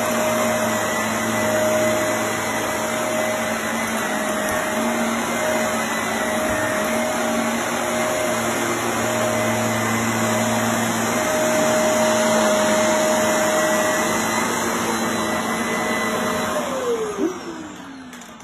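Shark Navigator upright vacuum running steadily on carpet with a whining motor tone. About three seconds before the end it is switched off, and the motor winds down, its pitch falling as the sound fades.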